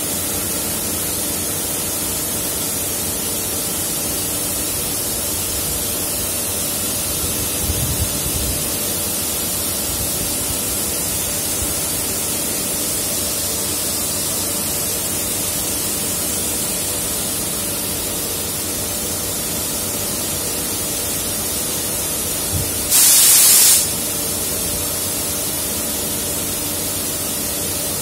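Single-arm 360-degree automatic car wash spraying water: a steady hiss of spray over a constant machine hum. There are a few low thumps early on and one louder burst of hiss lasting about a second late in the run.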